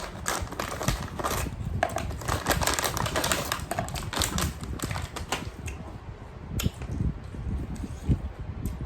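Eating and food-handling noises: rapid, irregular clicks and crackles, dense for about five seconds, then sparser.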